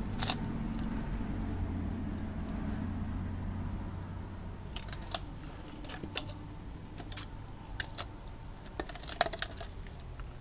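Scattered light clicks and crinkles of plastic cups and plastic sheeting being handled by a gloved hand, clustered in the second half, over a low steady hum.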